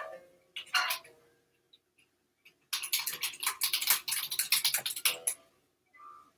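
Rapid run of clicks from typing on a computer keyboard, lasting about two and a half seconds in the middle, with a short faint tone near the end.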